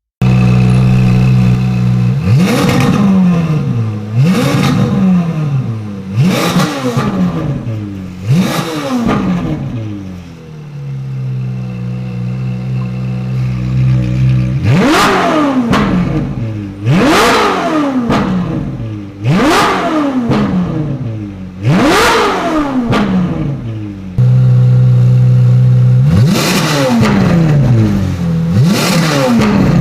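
Ferrari 458 Italia's naturally aspirated V8 breathing through an IPE aftermarket exhaust, idling loudly and being blipped again and again. Each rev climbs quickly and falls back to idle: four in the first half, a short spell of idle, four more, idle again, then a few more near the end.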